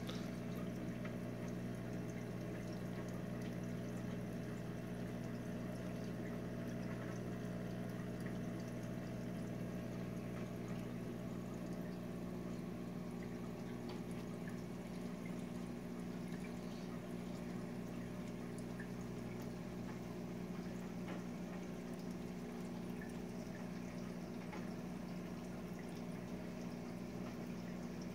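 Reef aquarium equipment running steadily: water trickling and splashing with faint drips, over a constant low hum from the tank's pumps.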